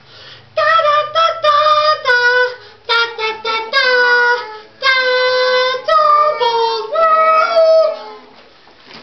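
A high-pitched voice singing a short song in phrases, with several long held notes, stopping about eight seconds in.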